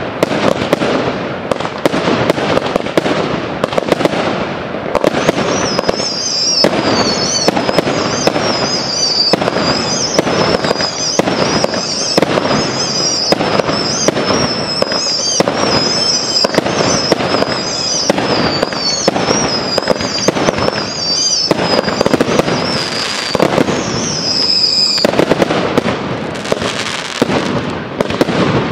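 Fireworks display: a continuous barrage of aerial shell bursts and crackling stars, bang after bang with no pause. A high warbling whistle runs over the bangs from about five seconds in until a few seconds before the end.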